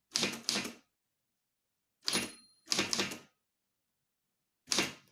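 Typewriter keys being struck: four short clusters of clacking keystrokes separated by pauses, as spaces and characters are typed.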